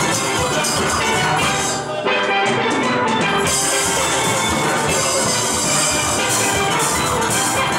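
Steel band playing an up-tempo tune on steel pans, from high lead pans to big bass pans, over drums and percussion. About two seconds in the band breaks briefly, then comes back in full, the high percussion rejoining a second or so later.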